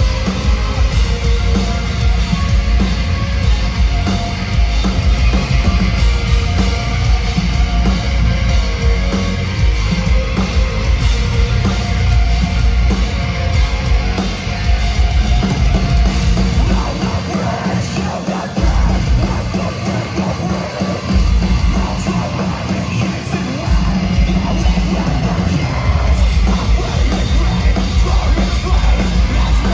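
Metal band playing live, with loud distorted guitars and drum kit. The heavy low end drops away for several seconds past the middle, then the full band comes back in.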